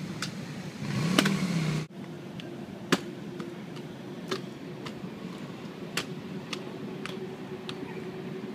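Stunt scooter tricks on pavement: a loud landing clack about a second in, then wheels rolling with a steady hiss and a series of sharp clacks of the deck and wheels hitting the ground.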